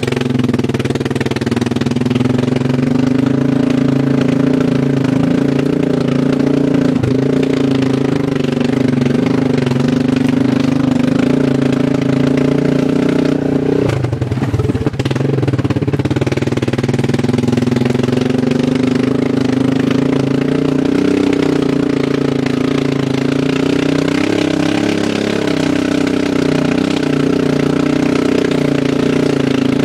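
Loud straight-piped exhaust of an Arctic Cat ATV engine running under way, holding a steady note. About fourteen seconds in the engine briefly drops off, then its pitch climbs back up as it pulls again.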